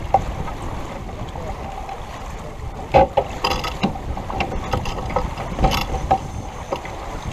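Wind on the microphone and water rushing along the hull of a sailboat under way. Scattered sharp knocks and clicks of deck gear being handled stand out, the loudest about three seconds in and again near six seconds.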